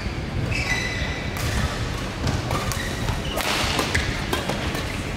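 Badminton rally: several sharp racket strikes on the shuttlecock and players' footwork on the court, over a steady hall rumble.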